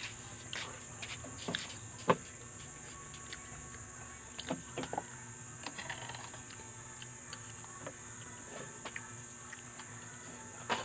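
Steady high-pitched chorus of crickets, with scattered small clicks and knocks, the sharpest about two seconds in and a few around the middle.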